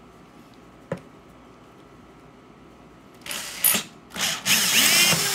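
Power drill driving a 2-inch hole saw into a plastic bucket lid. A short burst of the drill comes a little over three seconds in, then the saw bites in and grinds steadily through the plastic, with the motor's whine sweeping in pitch.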